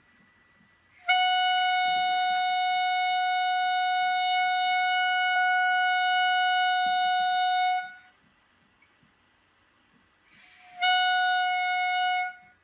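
A steady, unwavering high note with a reedy, buzzy timbre, held for about seven seconds, then a second, shorter note at the same pitch near the end.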